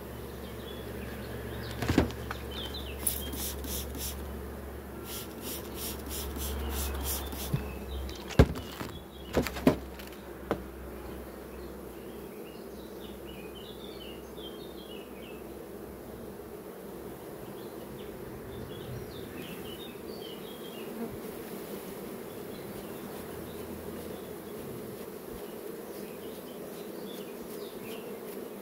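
A honeybee swarm buzzing steadily around an open hive as it is brushed off its comb into the box. A few sharp knocks come in the first ten seconds.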